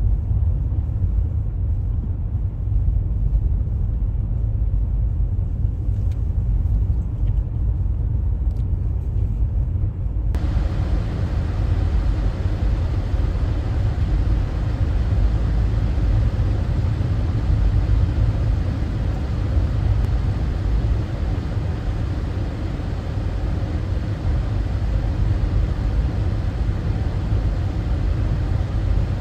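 Road noise inside a moving vehicle on a snow-covered highway: a steady low rumble of tyres and engine. About ten seconds in, a broader hiss suddenly joins it and carries on.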